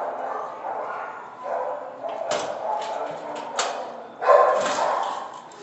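Dog barking and whining in short calls, with a run of sharp clicks or knocks in the middle and a loud burst about four seconds in.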